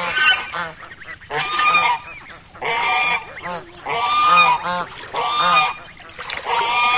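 Domestic white geese honking repeatedly: about six loud, drawn-out honks a second or so apart, with quicker, shorter calls in between.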